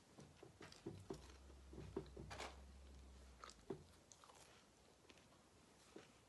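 Faint bites and chewing of a crunchy snack, in a scatter of short crunches, the sharpest about two and a half seconds in, thinning out after about four seconds.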